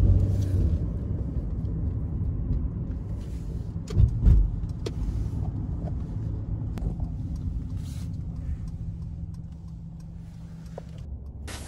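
Road noise heard inside a moving car's cabin: a steady low rumble of tyres and engine, with a short low thump about four seconds in. The rumble eases somewhat toward the end.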